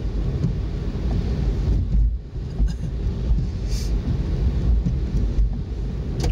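Road noise inside a car driving on a wet road: a steady low rumble from the engine and the tyres on wet pavement, with some wind buffeting on the microphone.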